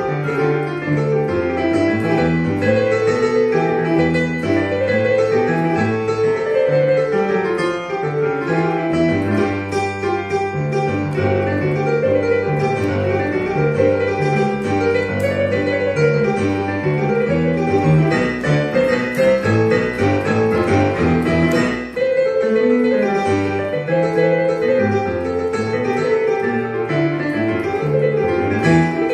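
Casio Celviano digital piano played two-handed: a melody over left-hand chords and a moving bass line, kept up steadily with one brief break about three-quarters of the way through.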